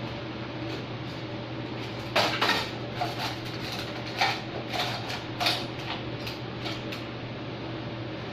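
A run of sharp metallic clinks and clatters, as metal parts or tools are handled and set down, over a steady low electrical hum.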